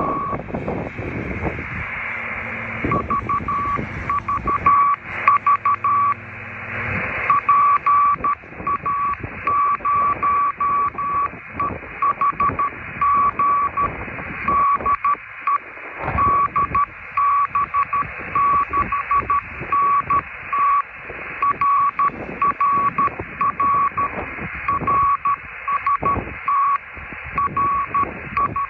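Morse code (CW) from a transceiver's speaker: a single tone of about 1 kHz keyed on and off in dots and dashes over steady receiver hiss. The keying starts about three seconds in and runs on. This is the Morse exchange of an amateur radio contact on a millimetre-wave band.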